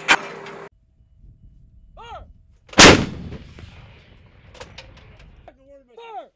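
M777 155 mm towed howitzer firing once, about three seconds in: a single very loud blast with a long echoing tail. A short shout comes just before the shot and another near the end, and a sharp knock sounds right at the start.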